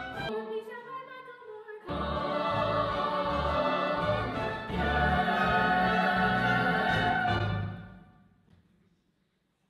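Live stage-musical music from a pit orchestra with ensemble voices: a thinner phrase, then the full band comes in about two seconds in and plays loudly before dying away to near silence around eight seconds in.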